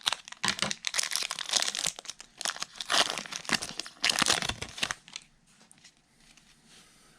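Foil trading-card pack wrapper crinkling as it is torn open. The crinkling runs dense for about five seconds, then drops to a faint rustle.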